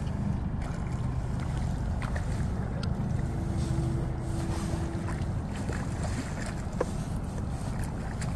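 Boat motor running steadily at trolling speed with a low rumble. A few small splashes come from a hooked lake trout thrashing at the surface.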